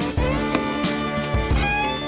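Background music with a steady beat and pitched string instruments.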